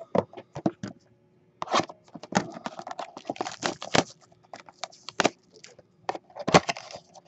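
Cardboard trading-card box being handled and opened: a quick, irregular run of clicks, taps and packaging rustles, the loudest about six and a half seconds in.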